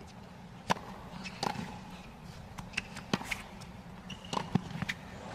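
Tennis rackets striking the ball in a hard-court rally, opening with a serve about two thirds of a second in: a series of sharp pops, a second or less apart, with ball bounces and a couple of short high shoe squeaks, over a low, steady stadium crowd hum.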